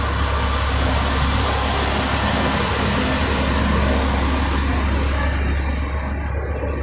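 HOWO heavy diesel tractor-trailer passing close by: a deep, steady engine rumble with tyre and road noise, loudest about four seconds in and easing off near the end.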